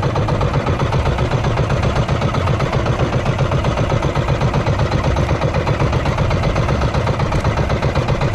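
Small motor of an outrigger fishing boat running steadily at trolling speed, with a fast, even chugging beat.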